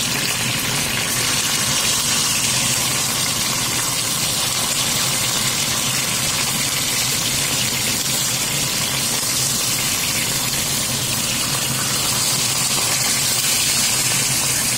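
Fish frying in hot cooking oil: a steady, loud sizzle with no break, over a low steady hum.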